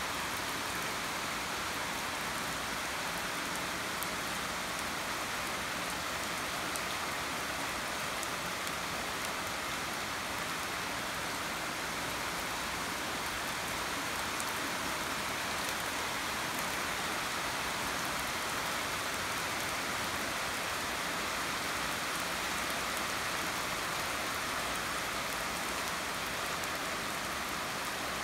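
Steady rain falling on a leafy garden: an even hiss that holds level throughout, with a few faint drop ticks.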